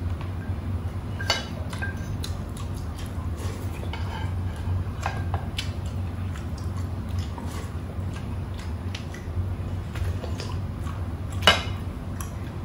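Tableware clinks during a meal: scattered light taps of a fork, chopsticks and plates, with one sharper clink near the end, over a steady low hum.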